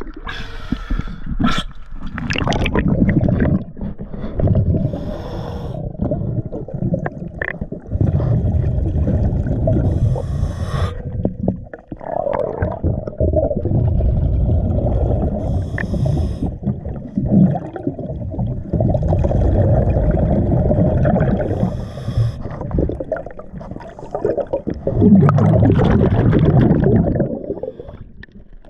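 A diver breathing through a regulator underwater: a high hiss on each inhale, then a long, loud bubbling rush of exhaled air. The cycle repeats about every five to six seconds.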